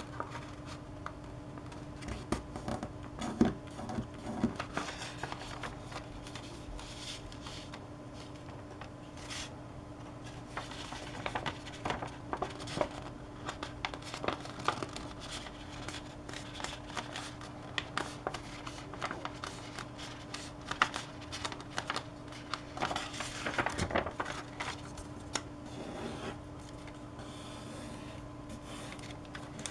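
Sheet of origami paper rustling and crinkling as it is handled, folded and creased flat by hand, with irregular short rubs and taps as fingers run along the folds. A steady low hum runs underneath.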